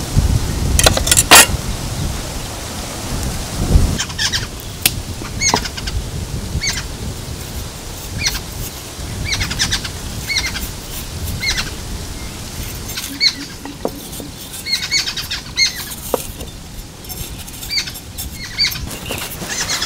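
Birds chirping outdoors: short, high calls repeated roughly once a second. In the first few seconds there is a low rumble with a couple of sharp knocks.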